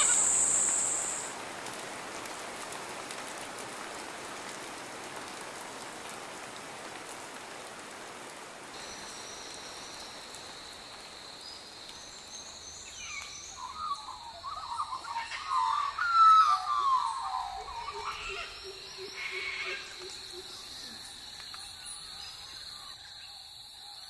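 Forest ambience: a high insect buzz that stops about a second in, then a soft even hiss, with a steady high insect whine setting in about a third of the way through. Birds call loudly for several seconds in the middle.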